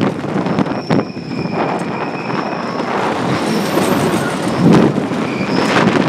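Coney Island Cyclone wooden roller coaster train rattling and rumbling over its track at speed, heard from on board. A sharp knock comes about a second in, followed by a thin high squeal for about two seconds.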